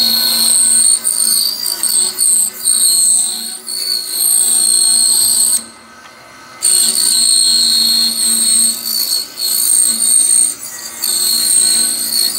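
Bandsaw with a narrow blade running in a small spring-loaded blade guide, cutting a small block of walnut: a steady high-pitched whine that drops away briefly several times, and for about a second near the middle.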